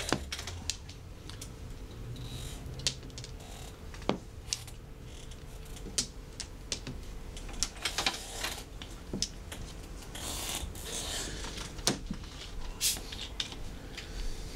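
Mahjong tiles clicking and clacking on the table as players draw and discard: sharp clicks at irregular intervals.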